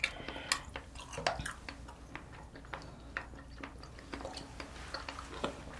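Quiet chewing of sliced boiled octopus, with many small wet mouth clicks and smacks at irregular moments.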